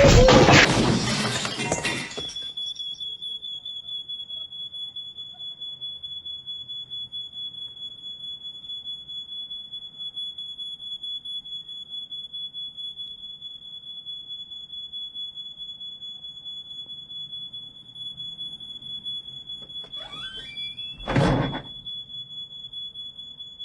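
A loud noisy crash fades out, then a single high-pitched electronic beep tone holds steady for about twenty seconds, like a flatline or ear-ringing sound effect. Near the end a short rising sweep and a brief loud hit cut across it.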